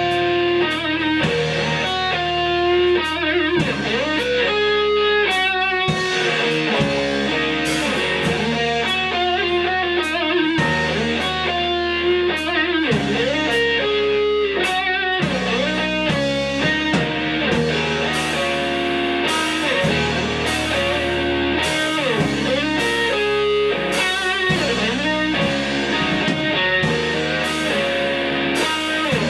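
Live rock band playing an instrumental passage: electric guitar picking out a riff over low bass notes, with regular drum and cymbal hits that grow busier about halfway through.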